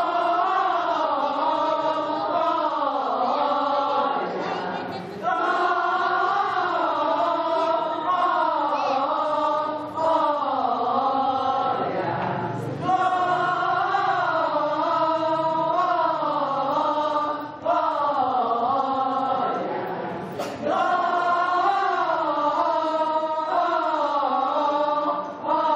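A women's church choir sings a Christmas cantata together in sung phrases separated by short breaks.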